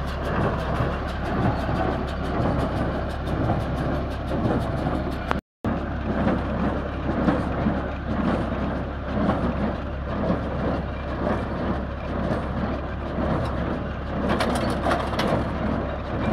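John Deere 342 small square baler working hay behind a tractor: a steady, rhythmic mechanical clatter from the pickup and plunger over the low hum of the tractor's engine. The sound cuts out briefly about five seconds in.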